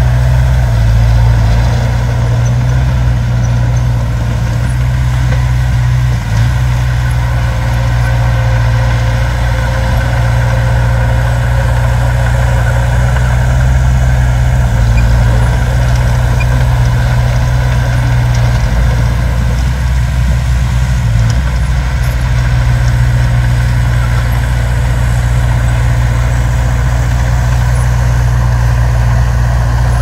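Diesel engine of a small crawler bulldozer running steadily at a low, even pitch.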